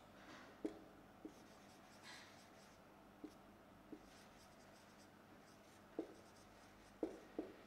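Faint marker pen writing on a whiteboard: soft scratchy strokes with a handful of short squeaks and taps as letters are formed.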